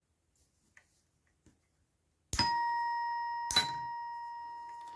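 Electromechanical ding-dong doorbell chiming: its iron striker hits one metal tone bar, then the other about a second later. Both notes ring on, fading slowly.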